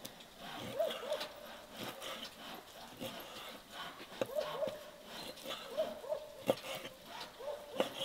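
Knife cutting raw beef into cubes on a wooden chopping board, the blade knocking sharply on the wood every second or so. Short squeaky animal calls, usually in pairs, recur throughout.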